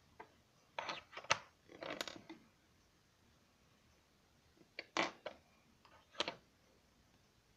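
A few small clicks and short scrapes of tools and parts being handled on a workbench: a cluster in the first two and a half seconds, then a couple more around five and six seconds.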